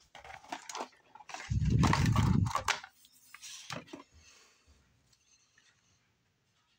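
Plastic toy figure being pulled out of its cardboard window box: card and plastic rustling and scraping, with a loud scrape about a second and a half in.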